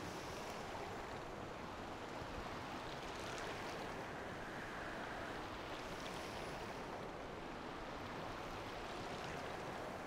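Mountain river running over a rocky bed with small rapids: a steady, even rush of water.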